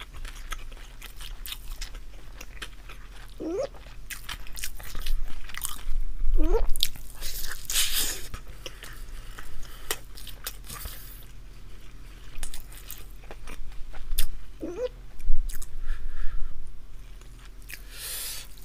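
Close-miked chewing: a Korean rice ball (jumeokbap) being bitten and chewed, in uneven bursts of mouth noise.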